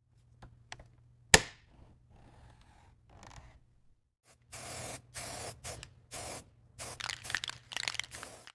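A single sharp crack about a second in, then, from about halfway, a quick run of short scraping strokes.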